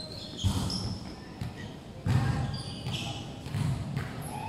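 A volleyball hit and bouncing on a wooden sports-hall floor: several dull thuds, the loudest about half a second in and about two seconds in, echoing in the large hall, with players' voices between them.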